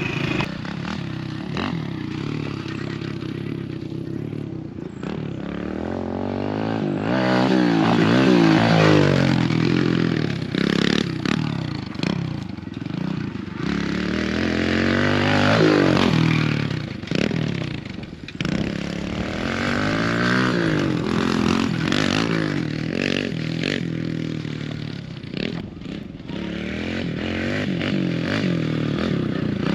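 Small Kawasaki KFX50 quad engine revving up and falling back again and again as it is ridden around a dirt track, with scattered knocks and clatter.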